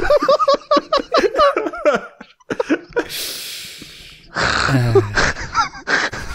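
Several men laughing and giggling, with a breathy hiss into the microphone about three seconds in that lasts about a second.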